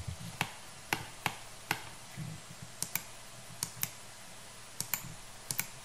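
Scattered sharp clicks of a computer mouse and keyboard, some in quick pairs, over a faint steady hiss.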